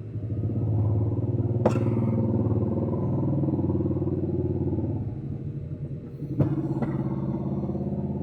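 An engine running nearby, its low pulsing rumble swelling and easing, with two sharp clicks, one about a second and a half in and one near the end.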